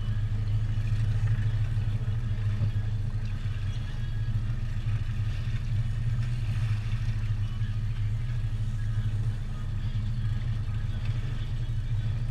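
Boat's outboard motors running steadily at low speed, an even low hum.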